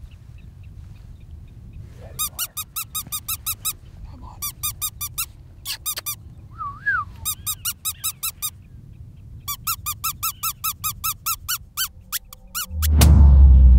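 Predator call sounding runs of rapid, high squeaky distress cries, about six or seven a second, with short pauses between runs and one rising-and-falling squeal in the middle. Near the end a loud, deep music sting comes in.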